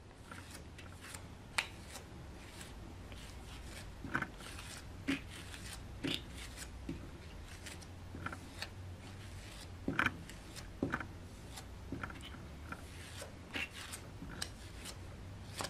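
Serrated rib tool scraping over the clay surface of a pinch pot in short, irregular strokes, a soft scratching with scattered sharper ticks, over a steady low hum.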